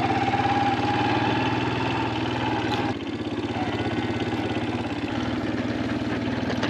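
A vehicle engine running steadily, with a fast, even firing rhythm; a higher tone in the sound fades out about three seconds in.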